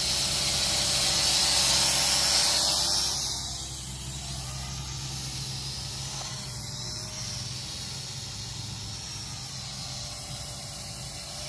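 Wind hissing, loudest for the first three seconds or so and then easing, over the faint steady hum of a drone in flight.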